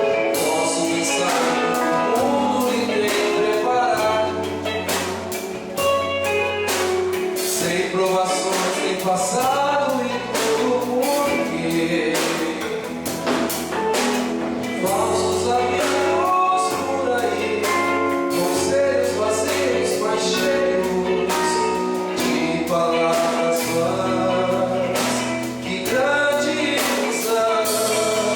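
Gospel worship band playing a song, with voices singing together over bass and a steady drum beat.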